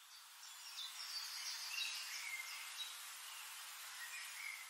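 Faint nature ambience: a steady high hiss with short bird chirps scattered through it.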